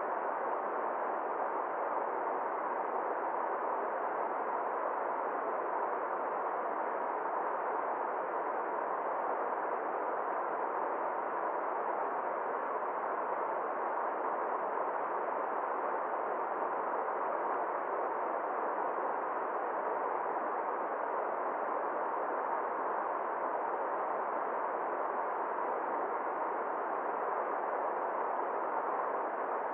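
Shallow river rushing over stones and small rapids, a steady, even rush with no breaks.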